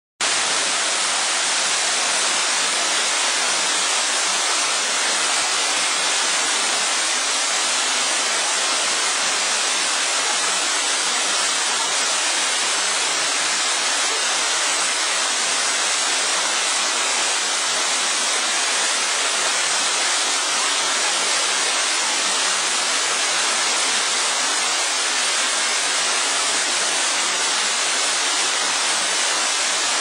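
Tall waterfall falling into a pool: a steady, even rush of water, mostly a bright hiss with little low rumble.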